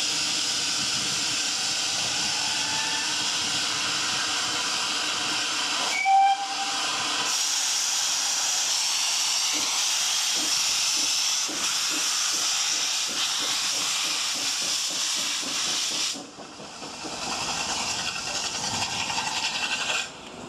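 GWR steam railmotor No.93 venting steam in a loud, steady hiss, with a short whistle toot about six seconds in. The hiss falls away sharply about three-quarters of the way through.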